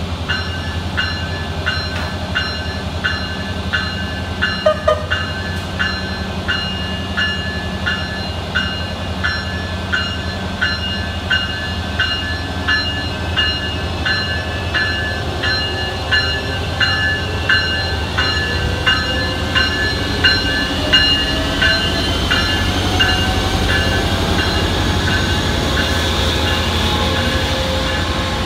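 Siemens Charger diesel locomotive running at the platform, its bell ringing steadily at about one and a half strikes a second. In the second half a rising whine and growing engine sound come in as the train starts to pull away.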